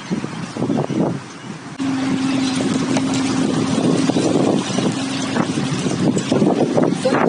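A dinghy's outboard motor running under way, with wind on the microphone. It gets suddenly louder about two seconds in and then runs as a steady hum.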